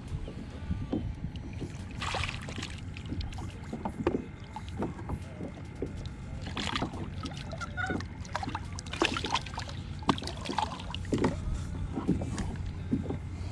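Water splashing and sloshing beside a kayak as a hooked flounder is brought to the surface and lifted by the line. Short splashes come at about 2 s, 7 s and 9 to 10 s, with scattered clicks and knocks of tackle against the kayak over a low steady rumble.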